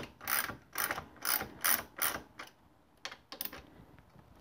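Socket ratchet wrench clicking in quick back-and-forth strokes, about six in the first two and a half seconds, as it backs out a 12 mm brake caliper mounting bolt. It pauses, gives two fainter strokes a little after three seconds in, and stops.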